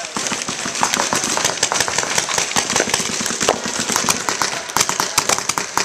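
Rapid paintball marker fire: many sharp shots in quick succession, coming thickest near the end.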